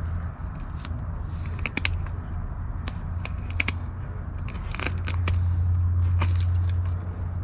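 Knife cutting and scraping through a sheepshead being cleaned: irregular sharp crunching snips and scrapes over a low steady hum.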